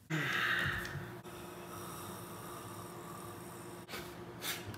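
Microwave oven starting up and running: a sudden rush as it starts, then a steady hum with a faint tone. A couple of short knocks come near the end.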